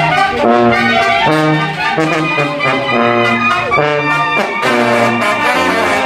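A live banda sinaloense brass band playing: a tuba's low bass notes alternate about twice a second with offbeat brass chords, with trumpets and trombones carrying the tune above.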